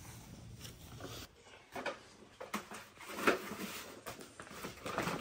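Scattered knocks, clicks and rustling as boxes and household items are carried and handled, with the sharpest knock about three seconds in.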